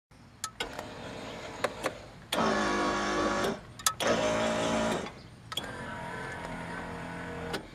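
Electric power-seat motor of a 1956 Ford Fairlane Victoria's front bench seat, running in four stretches as the seat control knob is worked. The two middle runs are louder, and short switch clicks fall between the runs.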